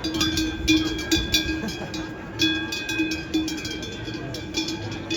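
Large cow bells clanging in an irregular run of strokes, several a second, each stroke leaving a ringing metallic tone over a steady low hum of the bell.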